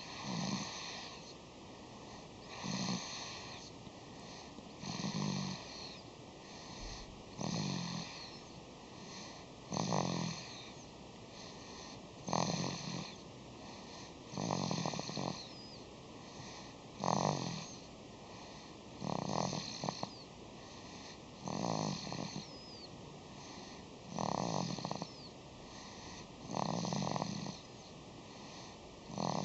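Steady, rhythmic snoring: a rasping snore about a second long on each breath, repeating roughly every two and a half seconds.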